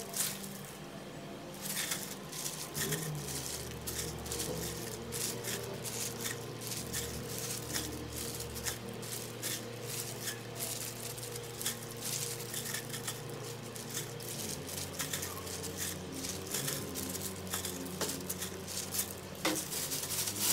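Hot khanom khrok crust and pan crackling and sizzling: a dense run of faint crackles, with a low hum underneath.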